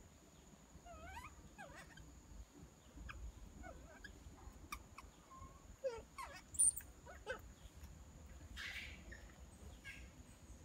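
Infant long-tailed macaque crying in short, high, squeaky whimpers that rise and fall, scattered through the first seven or so seconds, as it begs to nurse. A short breathy noise follows near the end.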